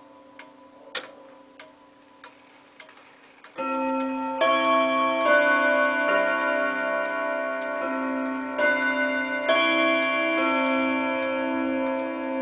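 German Mauthe chiming wall clock ticking, then about three and a half seconds in its chime starts: a run of struck notes that ring on and overlap. This is the half-hour chime, set off by turning the minute hand round to the six.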